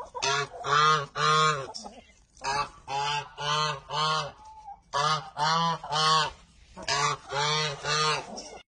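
Domestic goose honking repeatedly, about a dozen short honks in quick runs of three or four.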